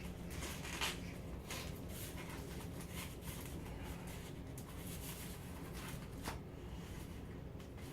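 Faint handling noises: scattered small clicks and rustles over a low steady hum.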